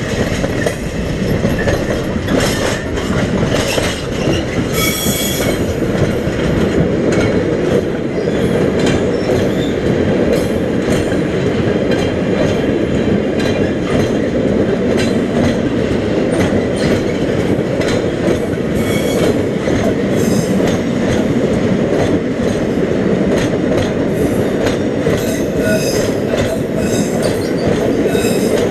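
Long freight train of wagons rolling past steadily, the wheels clattering over rail joints with brief high-pitched wheel squeals now and then.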